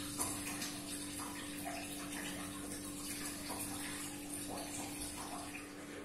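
A steady low hum under an even hiss like running water, with faint short chirps scattered through it.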